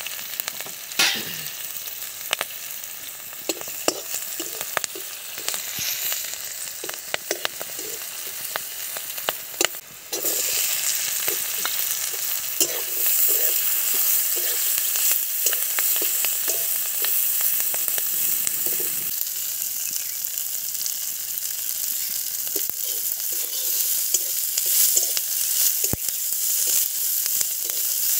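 Oil sizzling in a wide metal wok as red chillies and then garlic cloves fry. A metal spatula scrapes and clicks against the pan as they are stirred. The sizzle becomes louder and denser about a third of the way through.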